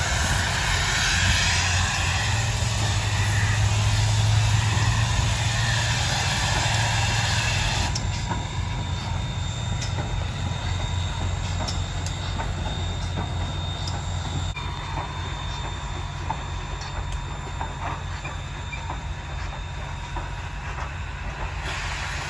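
Southern Railway 154 steam locomotive hauling passenger coaches past, with a hiss of steam and the wheels clicking over the rails. About eight seconds in the sound drops abruptly to a quieter run with thin high ringing tones and scattered sharp clicks as the train draws away.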